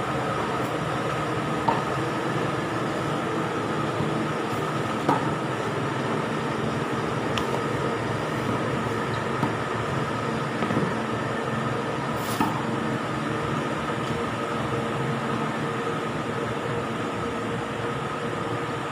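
Tennis ball struck by rackets a handful of times during a rally, sharp pops a few seconds apart, over a steady mechanical hum with a few constant tones.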